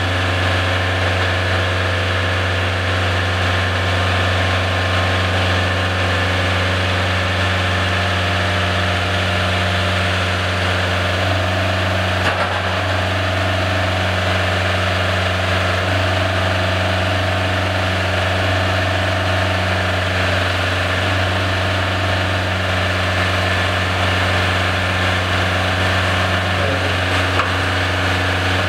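Diesel engine of a side-loader (swing-lift) truck running steadily, driving the hydraulics while the lift arms lower a 20 ft shipping container. A deep, even drone with a slight shift in tone about eleven seconds in.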